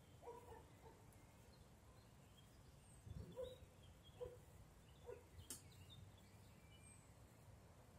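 Faint forest ambience: birds calling, with scattered short high chirps and a few short lower-pitched calls, over a low background rumble. One sharp click about five and a half seconds in.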